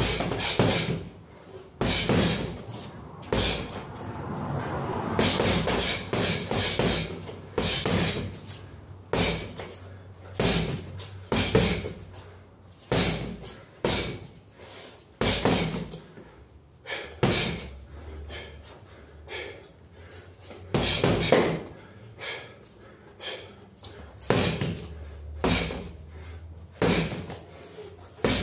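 Boxing gloves punching a heavy bag: sharp thuds in quick combinations of one to three punches, every second or two.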